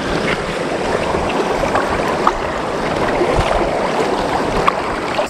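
River water flowing steadily close by, with a few brief splashes on top.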